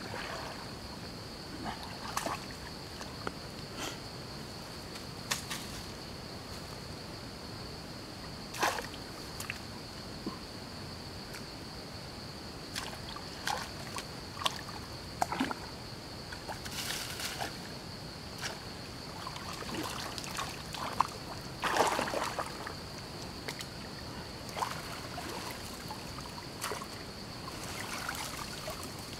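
Shallow stream water sloshing and splashing as hands work in it and mud and brush are pulled up, with scattered short splashes and a louder stretch of splashing about two-thirds of the way through. A steady thin high-pitched tone sits behind it.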